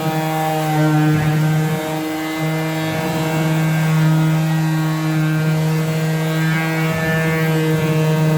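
Electric power sander running steadily against wood, a constant motor hum with a stack of overtones over a sanding hiss, wavering slightly a few times.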